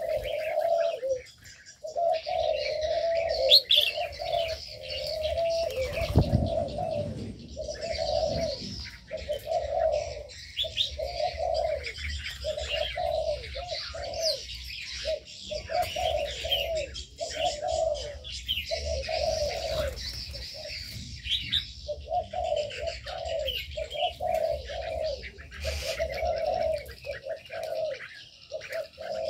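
Doves cooing over and over, one low coo after another, while many small birds chirp and twitter at a higher pitch.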